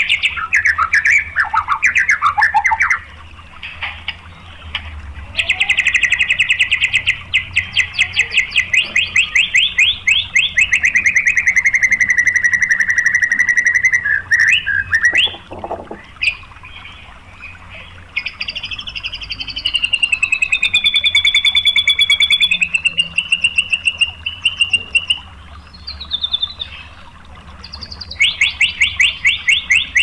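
White-rumped shama singing in rapid-fire 'tembakan' bursts: fast runs of sharp repeated notes, many per second, broken by short pauses. Midway there is a long wavering whistle, and the fast runs return near the end.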